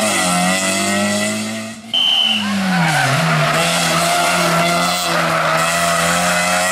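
Toyota Yaris rally car engine at high revs through a tarmac hairpin. The revs fall as it brakes into the bend, with a short tyre squeal about two seconds in, then it holds high revs as it powers out.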